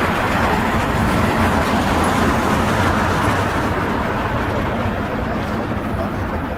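Steady road traffic noise, a continuous wash of vehicle engines and tyres, easing off slightly in the second half.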